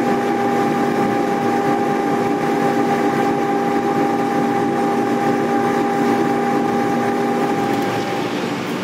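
A.O. Smith Legend 2000 commercial boiler firing: its induced-draft blower and burner run with a steady hum made of several steady tones. One of the higher tones drops out near the end.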